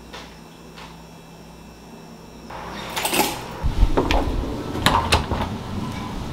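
Quiet room tone for about two and a half seconds, then a louder outdoor background with several sharp knocks of footsteps on a wooden stair landing, about three, four and five seconds in.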